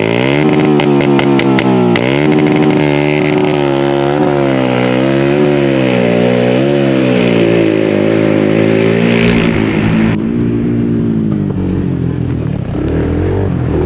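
A quad's engine running hard, its pitch rising and falling again and again as it is revved. The tone turns duller about ten seconds in.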